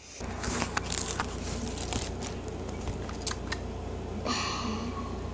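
Scattered small clicks and sticky crackles of hands handling slime and its container, with a short rustle about four seconds in, over a low steady hum.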